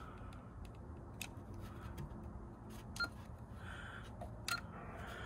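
Faint clicks from a Kenwood TS-50 HF transceiver's buttons and controls being worked, with a short beep about three seconds in and another brief blip near the end, over a low steady hum.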